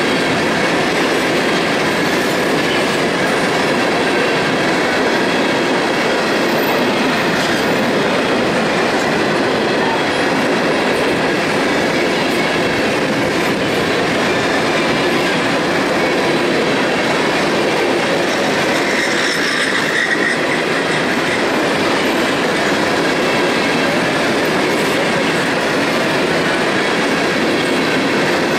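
A train of empty coal hopper cars rolling past close by: a steady loud rumble and rattle of steel wheels on the rails, with a brief wheel squeal about two-thirds of the way through.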